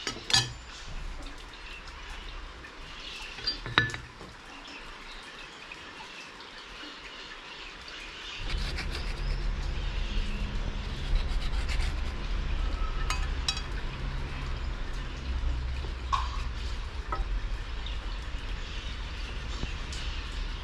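A steel knife blank set down and handled on a steel plate on a workbench, giving two sharp metallic clicks in the first four seconds, with birds chirping faintly in the background. From about eight seconds in a low steady rumble comes in and stays.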